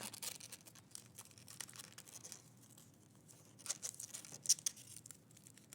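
Sticky tape and aluminium foil being handled: irregular crackling and tearing as tape is pulled off and pressed onto a rolled foil stick and dowel rod, busiest about four seconds in.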